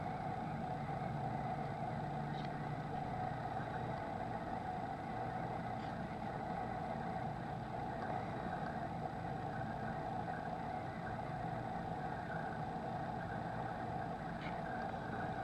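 A steady mechanical hum, like a motor or engine running, with a few faint ticks.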